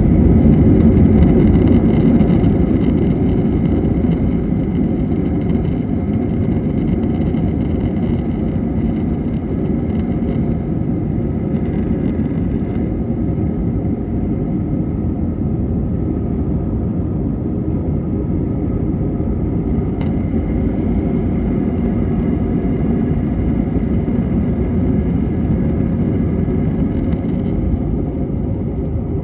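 Airbus A321 jet engines at takeoff power: a loud, steady low rumble with faint whining tones above it, loudest in the first few seconds and then nearly level.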